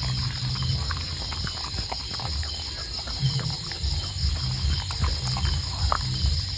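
A dog eating, with irregular chewing clicks and smacks and low grunting sounds as it works at the food.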